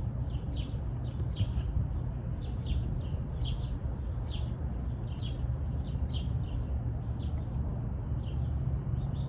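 Small birds chirping in a long run of short, falling chirps, about two or three a second, over a steady low rumble.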